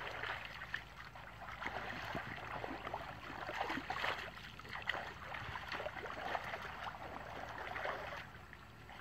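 Shallow muddy water sloshing and splashing irregularly as several people wade through it and reach into it with their hands.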